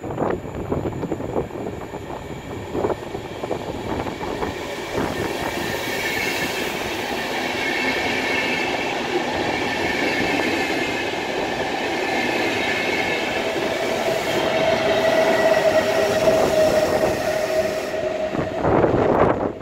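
A double-deck intercity train pushed by a VR Sr2 electric locomotive passing close by, its wheels clattering over the rail joints with a high squealing whine from the carriages. The sound grows louder through the passage, and a steady lower hum comes in as the locomotive goes by near the end.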